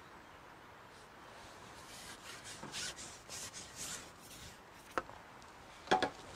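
A match-fishing pole being shipped back: a run of soft rubbing strokes as the pole slides back, then a small click and a louder, sharper knock near the end.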